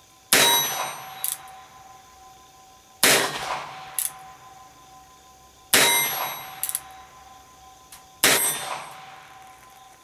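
Four shots from a stainless Ruger Bearcat .22 LR single-action revolver, about two and a half to three seconds apart, each a sharp crack with a short ringing tail. A quieter click follows each shot as the hammer is thumbed back for the next.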